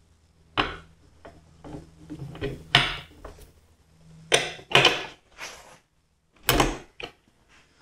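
Hand tools clanking: a long wrench with a socket and digital torque adapter being handled and knocked against steel bolts and plate, a string of separate metal knocks and clicks with handling rustle between.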